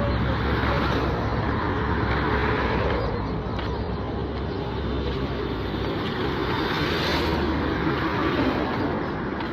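Road traffic: cars and other vehicles driving past, with a low rumble that eases about six seconds in.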